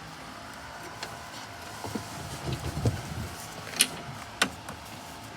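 Handle parts of a new Toro walk-behind lawnmower being worked into their mounting slot: a stretch of rumbling scraping about two to three seconds in, then two sharp clicks near the end.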